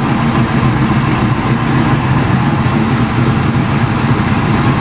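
Ford Fox Body Mustang engine idling steadily at operating temperature.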